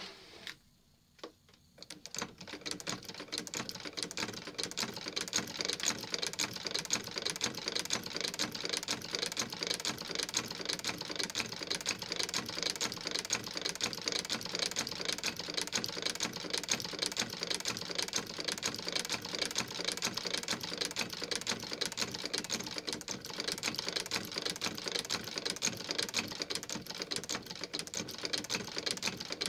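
Singer 29K-71 sewing machine stitching at a steady speed: a fast, even mechanical clatter of needle and feed that starts about two seconds in, after a couple of single clicks. The unrestored machine is running well.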